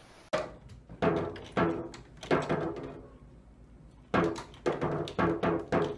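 Toy drum kit struck with a drumstick by a cat: uneven single hits, each thud ringing briefly. After a short pause near the middle, a quicker run of hits follows.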